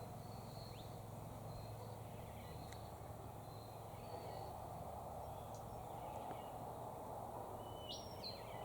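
Wild birds calling over a steady outdoor background hiss: a sharp, stepped whistled call at the start and again near the end, with faint short chirps in between.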